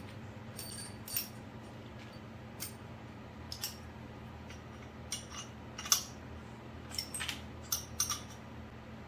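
Small metal tools and parts clinking and clanking as they are handled, about a dozen sharp light clicks, the loudest about six seconds in, over a steady low electrical hum.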